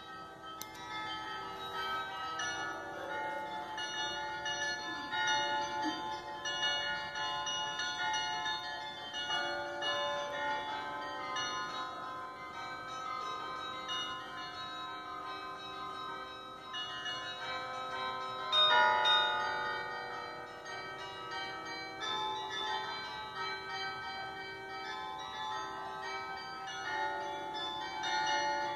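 Church bells of the Stevenskerk ringing. Many bell tones at different pitches strike and overlap, ringing on continuously, with a louder swell about two-thirds of the way through.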